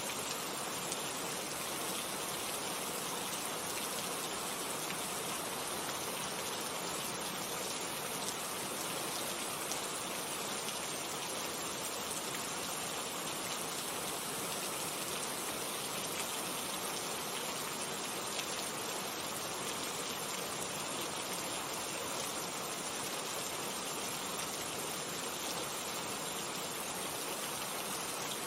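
Steady rain falling, an even hiss of many drops with a few single drops ticking out of it.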